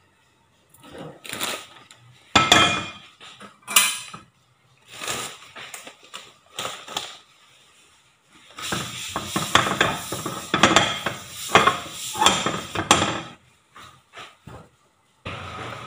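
A nonstick frying pan knocking and clattering on a gas stove's metal grate as it is set down and shifted, several separate knocks. About halfway through comes around five seconds of dense rubbing and clatter as the pan is wiped out with a paper towel, then a few small clicks.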